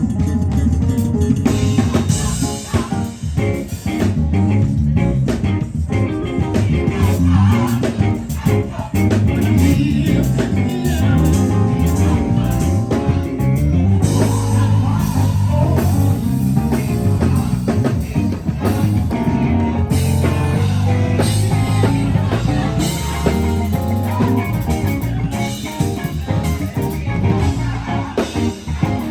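Live band playing at a sound check: drum kit with regular hits over a heavy bass line and guitar.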